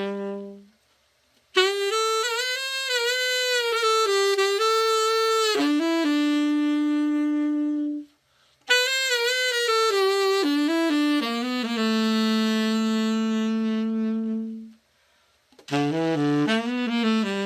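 Selmer Mark VI tenor saxophone played after a full overhaul: three slow melodic phrases with vibrato, each ending on a long held note, separated by short pauses.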